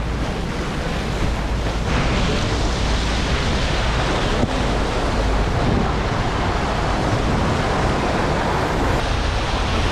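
Steady rush of wind blowing over the microphone, mixed with water rushing past a boat under way.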